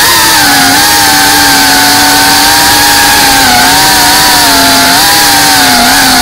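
FPV quadcopter's motors and propellers whining loudly in flight as one buzzing tone, its pitch dipping and rising with the throttle.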